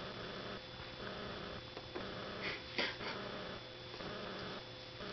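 Shiba Inu puppy sniffing and nibbling at a hand holding a chew, mostly soft, with a few short noises, the loudest a brief sharp one about three seconds in.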